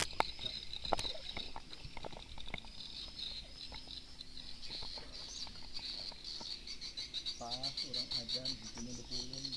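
A chorus of insects chirping in rapid, high-pitched pulses. There are a few sharp clicks in the first second, and a faint low wavering tone near the end.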